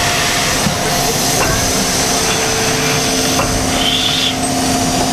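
Railway turntable turning with a steam locomotive on it: a steady mechanical rumble and hiss with a faint even hum and a few light clicks.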